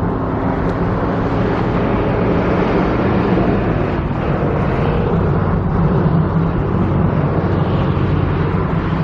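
Steady motor-vehicle noise with a low engine hum, swelling slightly in the middle and easing toward the end.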